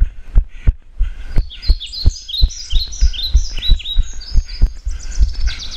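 Running footfalls, about three a second, thudding through a camera carried by the runner. A small bird sings a repeated series of short falling chirps over them.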